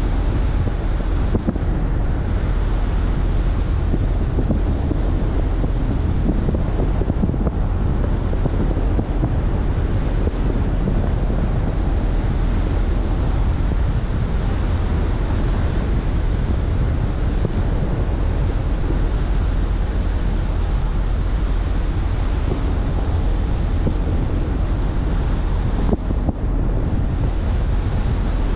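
A car driving at a steady speed: a constant rush of wind on the microphone and road noise, over a heavy low rumble.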